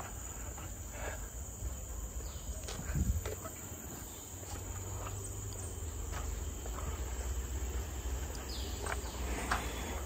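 Rainforest insects keeping up a steady, high-pitched drone, with a low rumble and a few soft knocks underneath.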